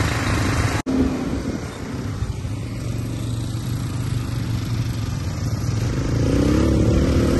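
ATV (quad bike) engines running as the quads ride along a dirt trail, with a brief cut-out about a second in. The engine note rises and grows louder near the end.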